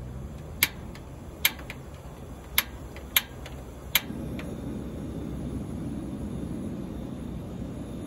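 Coleman two-burner butane camp stove being lit: five sharp igniter clicks, and on the fifth the burner catches and a steady rushing flame carries on.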